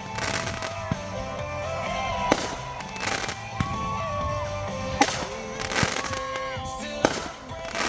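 Consumer fireworks going off in a series of about five sharp bangs, a second or two apart, over a song playing in the background.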